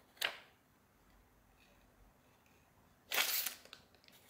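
Paper and cardboard packaging rustling as a phone box is unpacked by hand: a brief rustle just after the start and a louder, longer rustle about three seconds in.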